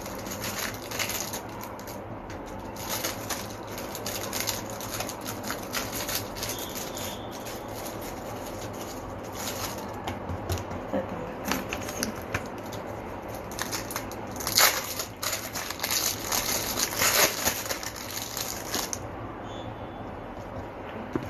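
Cling film crinkling and crackling on a countertop as hands press and fold soft potato dough over a filling, in scattered bursts that are loudest about two-thirds of the way through.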